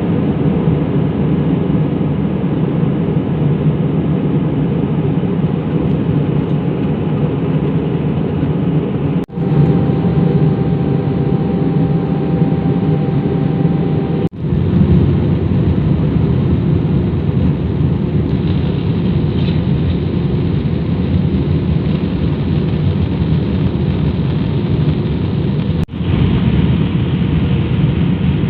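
Airliner cabin noise in flight: a steady, loud, low drone of jet engines and rushing air heard from inside the cabin, with three brief dropouts.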